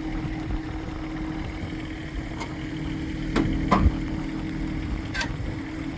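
A vehicle engine idling steadily, with wind rumbling on the microphone and a few sharp clicks and knocks, the loudest pair about three and a half seconds in.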